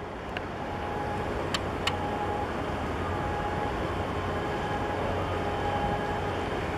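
Steady low rumble and hum of a large cargo ship's machinery as it moves slowly past close by, with a faint steady whine over it. Three short sharp clicks come in the first two seconds.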